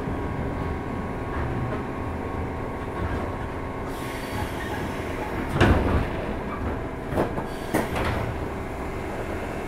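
Running noise heard aboard a JR 201 series electric train: a steady rumble with a faint steady hum. A few loud clatters of the wheels over the track come in the middle and later.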